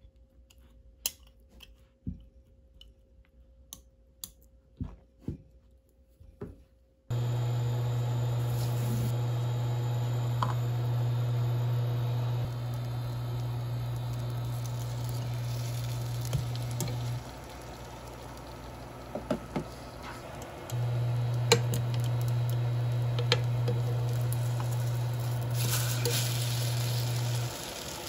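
A few light clicks of metal tongs handling egg-soaked bread in a dish. Then butter and bread sizzle faintly in a frying pan over a louder steady low hum that drops and rises again a few times.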